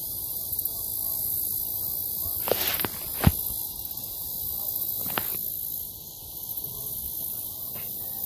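Steady high-pitched insect chorus at a pond, with a few sharp clicks between two and a half and five seconds in, the loudest just after three seconds.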